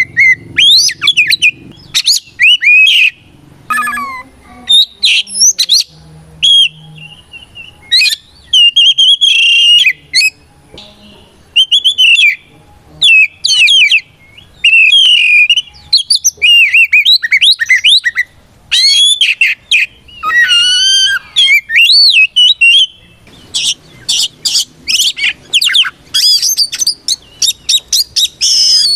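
Oriental magpie-robin singing a loud, varied string of whistled phrases with sliding notes, broken by short pauses. Near the end it breaks into a fast run of sharp notes.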